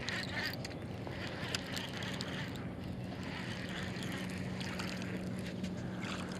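Bass boat's motor running steadily on the water: a low, even hum with faint light ticks over it.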